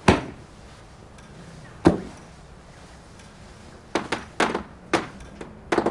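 A door shuts with a heavy knock just after the start, and a second sharp knock follows about two seconds later. Near the end comes a quick run of footsteps on a hard floor.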